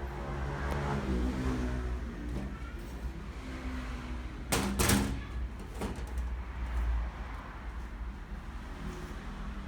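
A motor vehicle running with a steady low rumble, with a couple of sharp knocks about halfway through.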